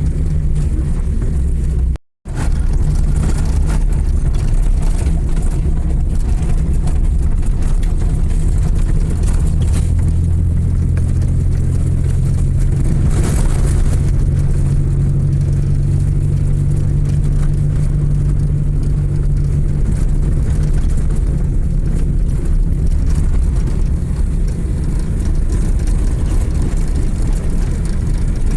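Car engine running steadily with road rumble while driving, its low drone growing stronger for a stretch in the middle. The sound drops out completely for a moment about two seconds in.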